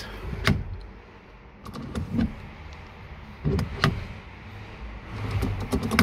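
Aftermarket quick-release steering wheel being fitted onto its hub: several sharp clicks and clunks, spread over a few seconds, as the coupling is worked into place.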